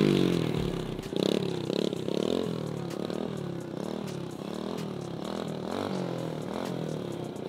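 Kawasaki KX450 dirt bike's four-stroke single-cylinder engine revving under constant throttle changes as it is held up in a circling wheelie, its pitch rising and falling about twice a second.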